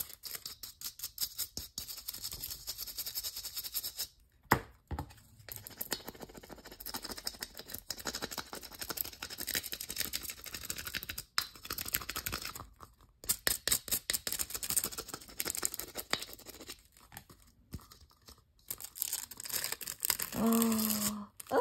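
Small hand tool rubbing holographic transfer foil onto a plastic Christmas ornament: quick, scratchy burnishing strokes with a few short pauses. Near the end comes a short pitched tone.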